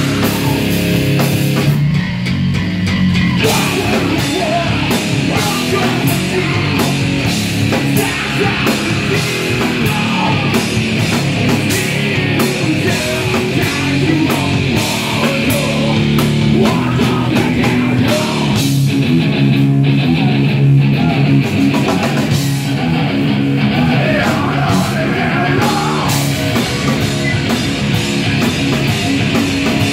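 A live band playing loud heavy music: electric guitar and bass, drums hit hard with cymbal crashes, and a vocalist shouting into the microphone.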